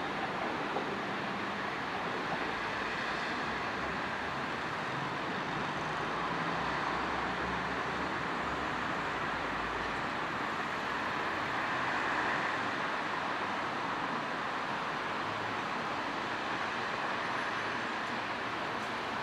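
Keihanna Line electric train coming along the track at low speed: a steady rumble and hiss of wheels on rail that swells a little midway.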